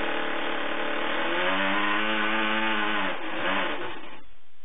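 Homemade 10 cc single-cylinder four-stroke glow-plug model engine, built after the JAWA ESO speedway engine, running with a propeller. Its revs rise briefly, then fall, and it sputters and stops about four seconds in.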